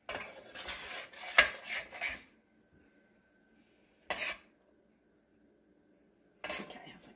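Metal spoon scraping and clinking against a stainless steel saucepan as thick fudge is stirred. The stirring comes in two spells with a pause between them, and there is one sharp clink about a second and a half in.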